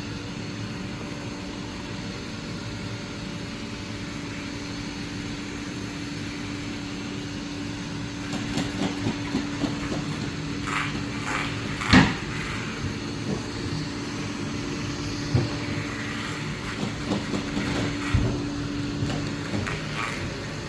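Roomba robot vacuum cleaner running with a steady motor hum. From about eight seconds in there are scattered clicks and knocks, the loudest a sharp knock about twelve seconds in.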